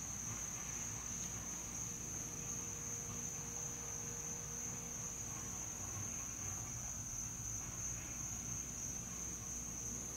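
A steady, high-pitched chorus of night insects trilling without a break, with a faint low rumble underneath.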